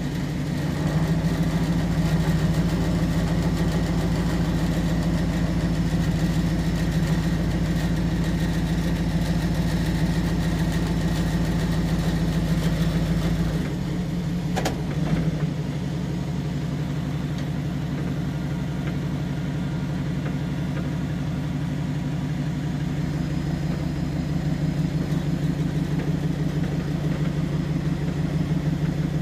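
Truck engine running steadily, heard from inside the cab, with a slight drop in level about 14 seconds in and one sharp click a second later.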